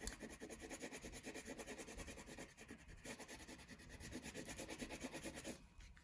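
Wax crayon scratching across paper in quick back-and-forth colouring strokes, faint and steady, pausing briefly near the end.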